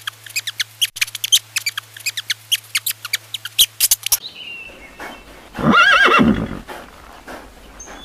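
Rats squeaking in a fast run of short, high squeaks over a low hum, stopping about four seconds in. A little later a horse whinnies once with a wavering, up-and-down pitch, the loudest sound here.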